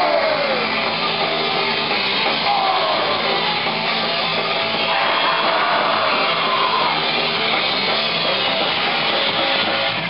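Metal band playing live: electric guitar and drum kit, with a shouted vocal over them.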